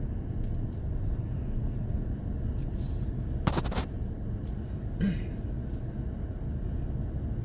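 Toyota Tacoma pickup truck driving, a steady low rumble of engine and road. There is a quick rattle of knocks about three and a half seconds in, and a single short knock about a second later.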